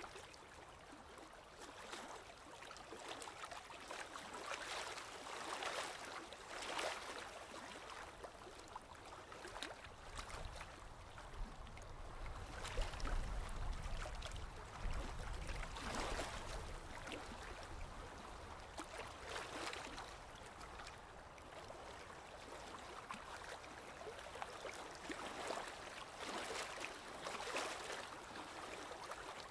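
Sea waves washing in, a rushing hiss that swells and fades every few seconds, with a deeper rumble for a few seconds about halfway through.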